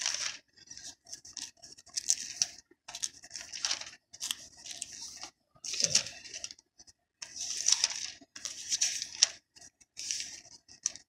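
Thin pages of a Bible being leafed through by hand, a short papery rustle with each turn, many turns in quick, irregular succession.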